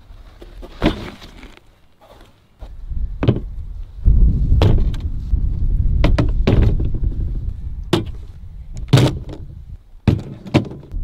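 Guns and magazines being set down one at a time on a plastic folding table: a series of sharp clunks and clacks, with a low rumble underneath in the middle.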